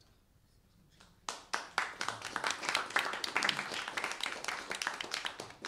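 Audience applauding: after a short pause, many hands start clapping just over a second in and keep on as a dense, irregular patter.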